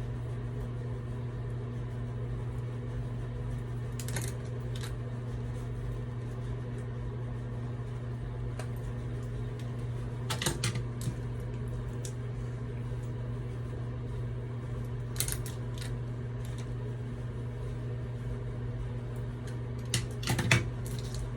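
Steady low electrical hum, like a fan or appliance running, with a few brief clicks and taps about four, ten, fifteen and twenty seconds in.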